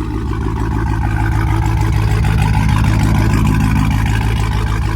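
Hellcat V8 in a Chrysler 300 idling with a choppy, pulsing idle. It swells slightly about halfway through and then settles.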